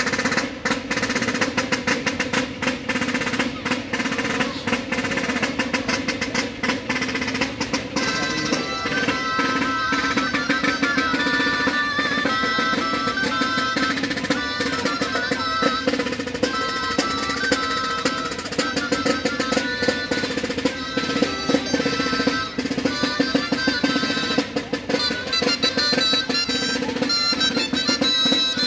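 Parade band music: a snare drum beating rapid rolls, joined about eight seconds in by a high-pitched melody instrument.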